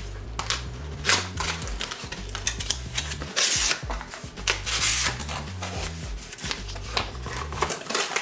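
Cardboard and plastic packaging handled while a box is unpacked: clicks and rustles, with two louder rustles about three and a half and five seconds in, over background music with a bass line.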